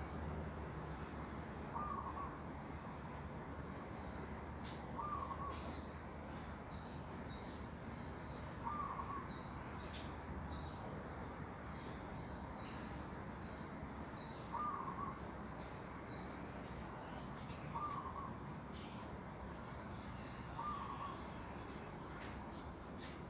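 Birds calling in a garden at morning: one bird repeats a short call every few seconds, and small birds chirp and twitter at a much higher pitch in between.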